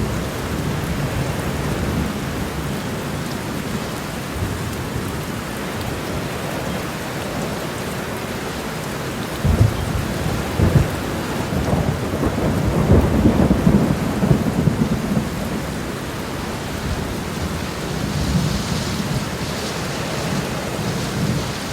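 Heavy rain pouring steadily onto a road, swelling louder with deep low rumbles between about ten and fifteen seconds in.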